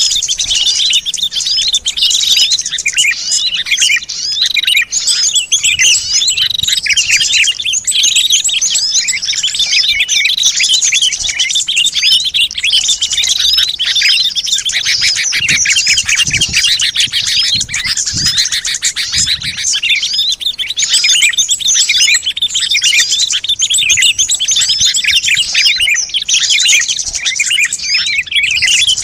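Dense, unbroken chorus of many small songbirds chirping rapidly over one another: a bird-lure recording used to call wild small birds in.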